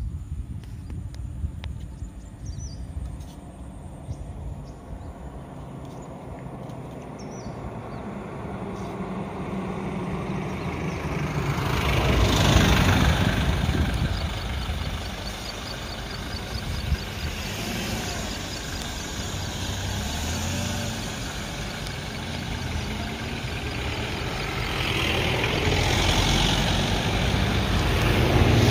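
Safari jeep's engine running close by, swelling to its loudest about twelve seconds in as the jeep draws up, then running on steadily.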